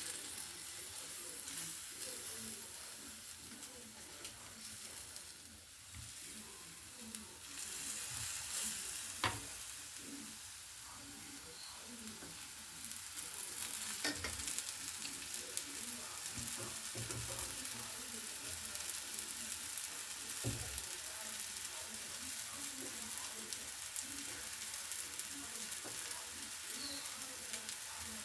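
Food frying and sizzling in a hot pan with a steady hiss while it is stirred, with a few sharp knocks of a utensil against the pan.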